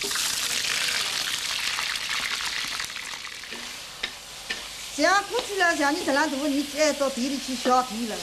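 Whole fish frying in hot oil in a wok over a gas flame: a loud sizzle that starts suddenly and fades after about three seconds, with a few sharp clicks. From about five seconds in, a woman speaks over the quieter frying.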